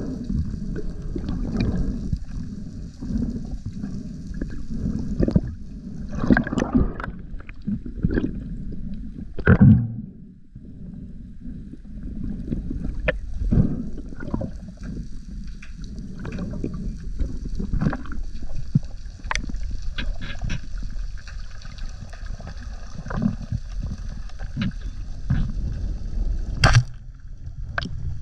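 Boat on open water: a steady low rumble of water and hull noise with scattered knocks and splashes, dipping briefly about ten seconds in.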